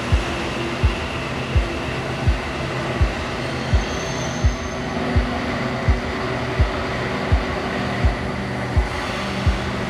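A steady low drum beat, about three every two seconds, over a continuous hum from a regional train standing at the platform.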